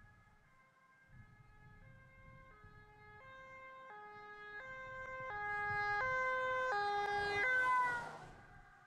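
Recorded two-tone (hi-lo) ambulance siren, swapping between its two notes under a second apart, growing louder as it approaches, then dropping in pitch as it passes and fading away.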